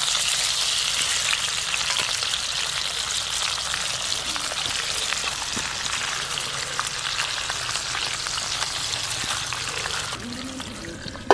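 Trout fillets sizzling in butter in a frying pan on a camping firebox stove, a steady hiss with light clicks as a fork and spoon turn the fillets. The sizzle quietens about a second before the end.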